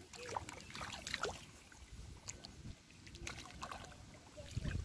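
Shallow muddy water splashing and sloshing in irregular bursts as hands and feet move through it while grabbing at a fish, with a heavier burst near the end.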